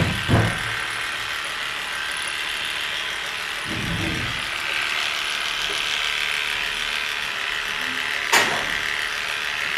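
Cordless electric pet clipper running steadily as it trims a puppy's coat, with a few soft knocks and a sharp click about eight seconds in.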